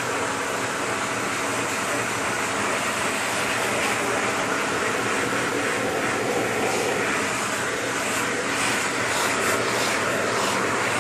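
Vacuum cleaner running steadily with its brush attachment on, a constant motor whine and rush of suction air; in the second half the airflow sound flickers as the brush nozzle is moved.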